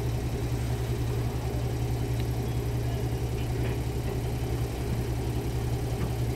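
Diesel train engine idling steadily while stopped at a halt: an even, low hum with no change in pitch.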